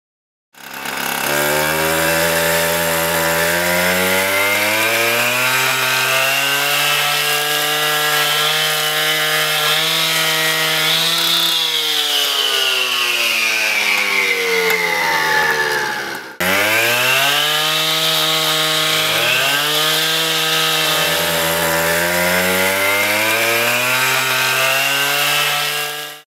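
Hitachi CM 75EPB two-stroke petrol cut-off saw, its 350 mm segmented diamond blade cutting sandstone slabs. The engine's pitch rises and dips as the blade works through the stone, with a high grinding whine over it. The sound breaks off sharply about sixteen seconds in, then starts again at once for a second run.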